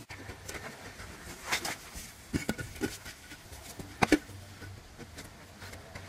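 Irregular short scrapes and knocks of hands working wet cement in a bowl and shifting stones, the loudest a sharp knock about four seconds in.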